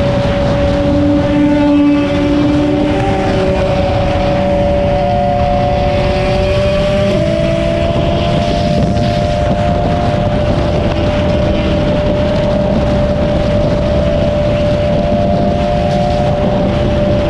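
Triumph Daytona 675 sport bike cruising at a steady speed, its engine note running under a constant rush of wind on the camera mic, with a slight change in pitch about seven seconds in.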